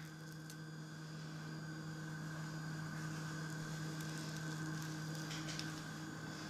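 Steady low electrical hum with a faint hiss: room tone, with a few faint clicks about five seconds in.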